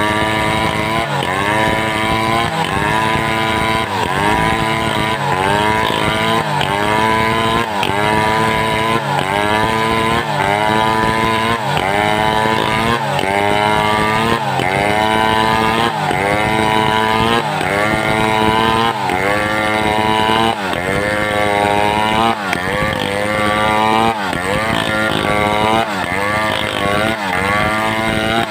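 Home-assembled two-stroke chainsaw cutting through timber under load, its engine pitch sagging and recovering about once a second as it bogs in the cut.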